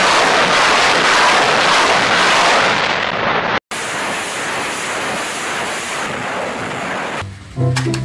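Salvo fire from truck-mounted multiple rocket launchers of the BM-21 Grad type: a continuous dense rushing noise of rockets launching in quick succession. It cuts off abruptly about three and a half seconds in, and a second, somewhat quieter salvo follows.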